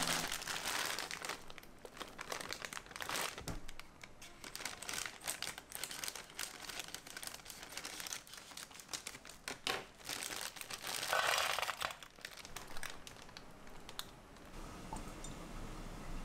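Plastic bag of Brussels sprouts crinkling and rustling as it is handled and opened, with sharp clicks of the sprouts tipping into an enamel dish.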